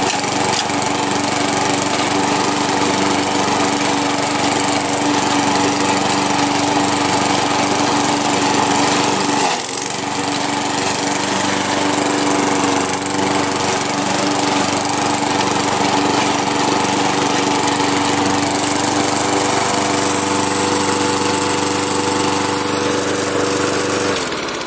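Walk-behind Lawn-Boy commercial mower with a replacement engine, running steadily under load while mowing grass, with a brief dip about ten seconds in. The engine is test-running well after the repower. Near the end it winds down and stops.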